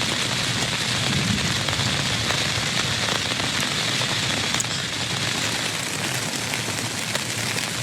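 Steady heavy rain falling, a dense hiss full of fine drop ticks. About halfway through there is a sharp click and the rain drops slightly in level.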